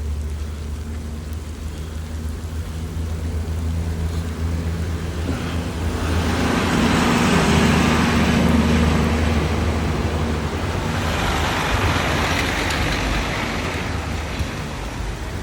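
Road traffic with a steady low rumble, as a vehicle passes about halfway through and another about 11 seconds in, each swelling up and fading away.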